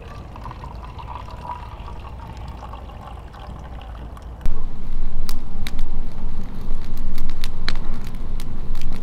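Liquid poured from a metal billy can into a mug in a thin trickle. About halfway through, the sound cuts suddenly to something much louder: a steady low rumble with scattered sharp crackles.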